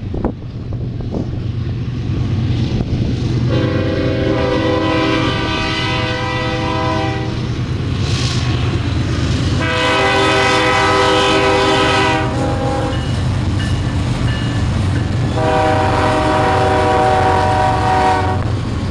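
BNSF and Union Pacific diesel freight locomotives passing close with a steady engine rumble that grows louder, and their multi-note air horns sounding three long blasts, about four, ten and fifteen seconds in.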